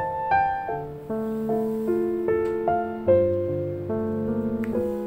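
Background music: a gentle piano tune, single notes and chords struck a few times a second and left to fade.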